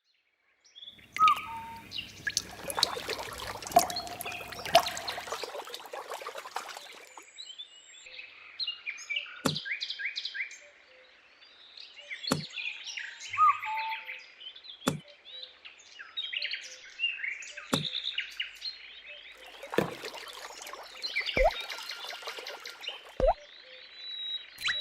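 Birdsong ambience: many small birds chirping and twittering. From about a third of the way in, quick falling swoops recur every two to three seconds.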